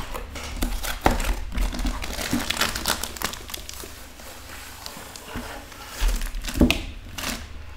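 Cardboard box being opened and a plastic-wrapped rolled canvas slid out of it: cardboard scraping and plastic crinkling, with a sharp knock near the end.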